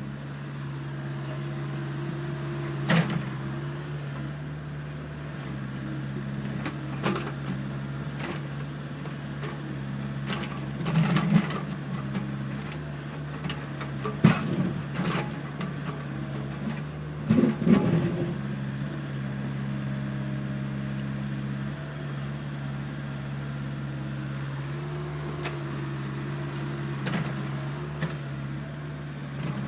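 Heavy diesel engine of an excavator or dump truck running steadily, with a series of sharp knocks and clatters, the loudest about halfway through. These are typical of an excavator working, its bucket striking and dumping dirt.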